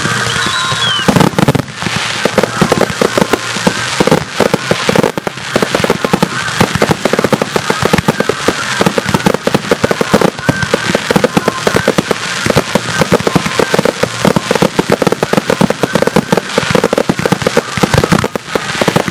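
Fireworks display: aerial shells and comets going off in a rapid, continuous barrage of bangs and crackle.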